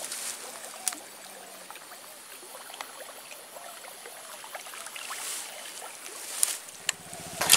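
Faint trickling and rippling of water as a surface lure is drawn through a narrow, weedy canal, with a few light ticks.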